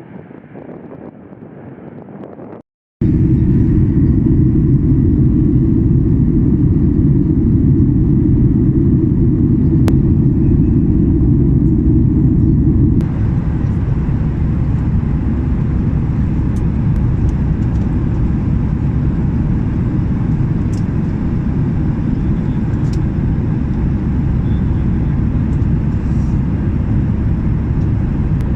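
Loud, steady rumble of a jet airliner's engines and airflow heard from inside the cabin. It starts abruptly after a brief cut about three seconds in, following a quieter stretch, and its tone shifts slightly about halfway through.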